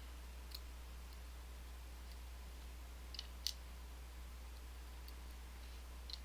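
A few faint, isolated clicks of small metal lock sliders from an EVVA ICS being set down on a desk, the sharpest about three and a half seconds in, over a steady low hum.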